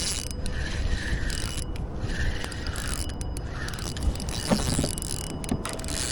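Spinning fishing reel being cranked, its gears ratcheting steadily as a redfish is reeled in, with a few sharp clicks.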